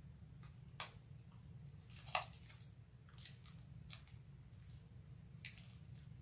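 Faint, scattered crinkles and crackles of clear plastic wrap being peeled off a stack of trading cards, over a low steady hum.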